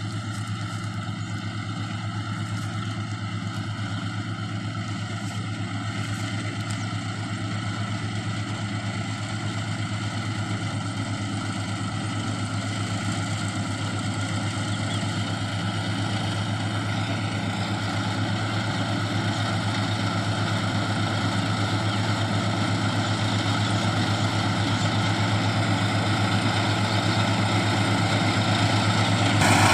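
Kubota combine harvester's diesel engine running steadily with a low drone, growing gradually louder.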